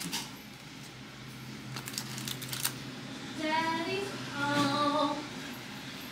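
A high voice briefly sings two short phrases, about three and a half and four and a half seconds in, over a steady low hum, with a few light handling clicks before it.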